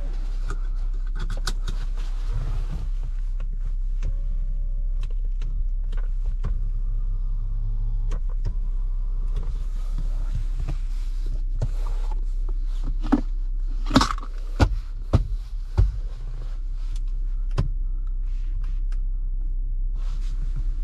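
Chery Tiggo 8's 1.6-litre petrol engine and road noise heard from inside the moving car: a steady low rumble with scattered clicks and knocks. A cluster of sharp, loud thumps comes about two-thirds of the way through.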